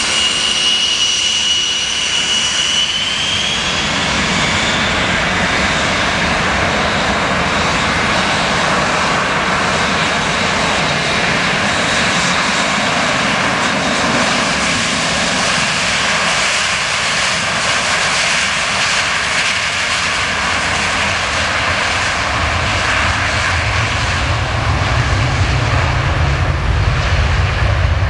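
Boeing 727 freighter's three Pratt & Whitney JT8D turbofans at takeoff power on the takeoff roll. A high whine climbs a little in pitch in the first few seconds over a steady, loud roar. The deep rumble grows stronger near the end as the jet moves away down the runway.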